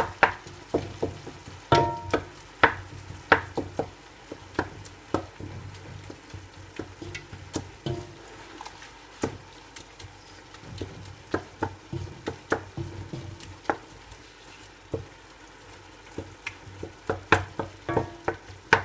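Wooden spoon stirring chicken mince in a pot, knocking and scraping against the pot in irregular clusters, heaviest in the first few seconds and again near the end. Under it the mince sizzles faintly as it fries.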